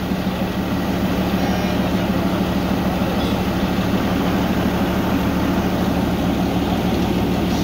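Narrow-gauge Darjeeling Himalayan Railway diesel locomotive idling at a standstill, a steady low engine hum that holds an even pitch and level.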